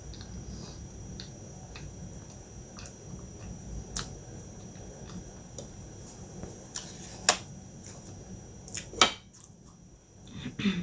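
Close-miked chewing and mouth sounds: soft wet clicks and smacks at irregular intervals as food is chewed with the mouth closed, with two louder sharp smacks in the second half.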